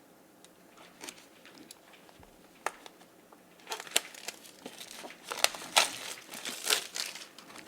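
A product box being opened and its packaging handled: crinkling and rustling with scattered light clicks, sparse at first and busier in the second half.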